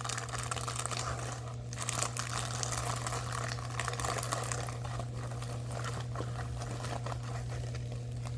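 Plastic packaging crinkling and rustling with many small crackles as a diamond-painting kit is handled, over a steady low electrical hum.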